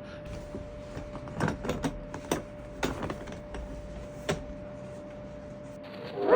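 Irregular short clicks and knocks, about half a dozen in a few seconds, over a steady faint hum.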